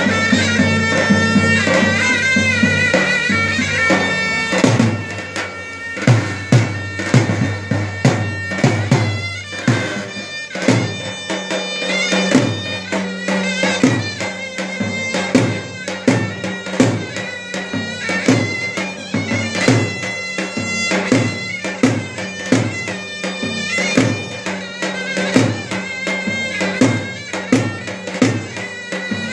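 Davul and zurna playing folk dance music: a reedy wind-instrument melody over regular drum strokes. The drum beats come in strongly about five seconds in and keep a steady rhythm.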